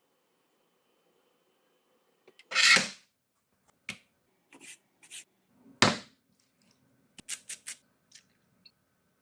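Kitchen handling noises during food preparation: a few separate knocks and scrapes, the loudest about two and a half seconds in and again about six seconds in, then a quick run of four sharp clicks.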